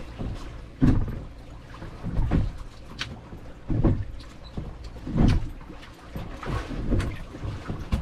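Choppy waves slapping against a boat's hull, a heavy slosh about every second or so at an uneven pace, with a couple of sharp knocks.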